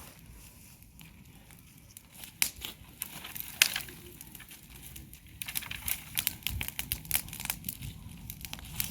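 Irregular sharp crackles and rustling of dry material, growing denser and louder about halfway through.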